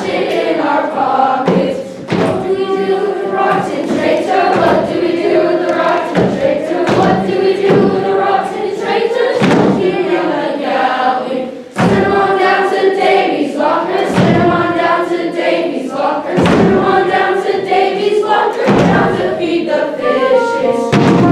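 A children's choir singing a song together over accompaniment with a steady thumping beat about once a second; near the end the singing gives way to an instrumental melody.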